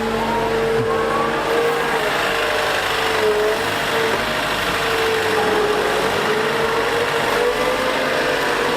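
Liebherr A 910 compact wheel excavator running steadily at work, its engine noise carrying a whine that wavers slightly in pitch.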